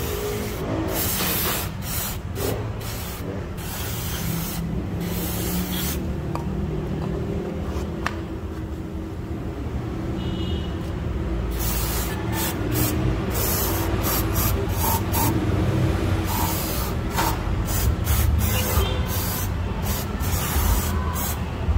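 Aerosol cleaner sprayed onto an EGR valve in repeated short hissing bursts, coming quicker in the second half, to wash off its carbon deposits. A steady low hum runs underneath.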